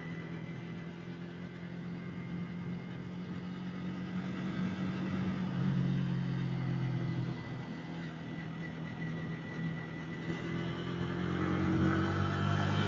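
Yamaha Vixion's single-cylinder four-stroke engine running under way, with a steady low note shifting in pitch midway and rising near the end as the bike speeds up, over a haze of wind and road noise.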